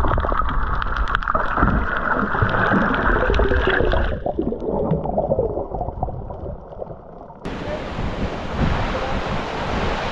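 Muffled underwater sound picked up by a camera's microphone: low water rumble and bubbling with scattered small clicks, duller after about four seconds. About seven and a half seconds in it changes suddenly to waves washing over a rocky shore with wind.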